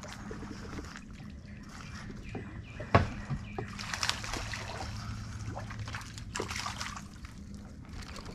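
A hooked bream splashing and thrashing at the water's surface as it is reeled in, with a sharp knock about three seconds in and the splashing strongest over the next few seconds.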